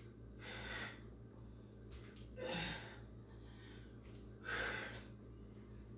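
A woman breathing hard from exertion during lunge-and-row dumbbell reps: three short, forceful breaths about two seconds apart.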